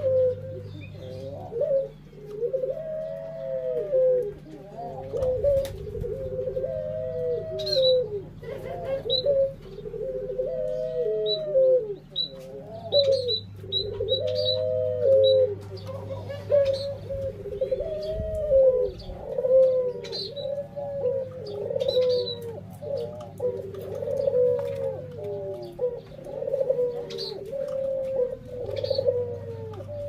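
Several captive turtle doves (burung puter) cooing over and over, their arched coos overlapping, with short high chirps of small birds scattered above them. A low hum comes and goes underneath.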